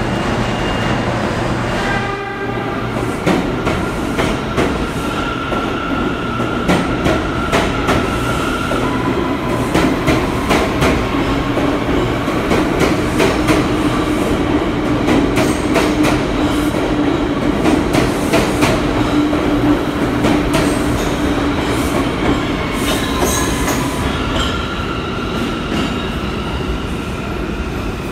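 New York City Subway train moving through an underground station: a steady rumble with repeated clickety-clack of the wheels over rail joints and a steady whine, easing off near the end as it pulls away.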